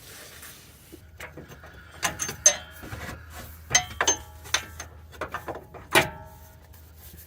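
Metal clinks and knocks of a steel Jeep Wrangler track bar, its bolts and tools as the bar is worked into its mounts, a few strikes ringing briefly, the sharpest about two and a half and six seconds in. A faint steady low hum runs underneath.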